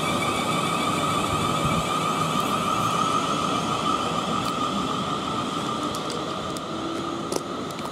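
South Western Railway Class 450 Desiro electric multiple unit pulling away from the platform: a steady electric whine of several held tones over wheel and rail rumble, easing slightly near the end.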